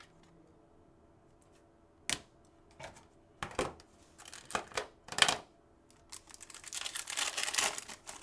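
Trading cards and foil pack wrappers being handled: several short taps and clicks of cards, then a longer crinkling rustle of a wrapper near the end.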